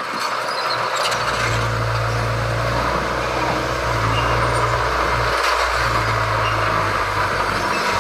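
Heavy diesel engine of earthmoving machinery running steadily with a low, even hum that settles in about a second in and dips briefly a little past halfway.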